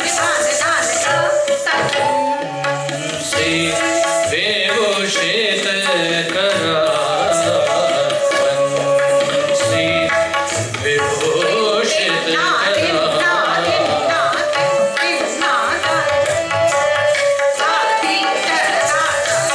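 Live Hindustani classical music: tabla played in rupak taal, the seven-beat cycle, under a singing voice and held melodic notes.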